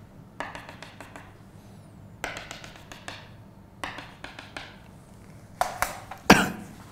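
Chalk tapping on a chalkboard in quick short strokes while dashed lines are drawn, in four separate bursts of ticks. A single louder thump comes near the end.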